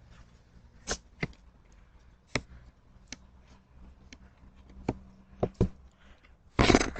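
A few faint, sharp clicks and taps scattered over a low steady hum, then a louder rush of hissing, rustling sound near the end.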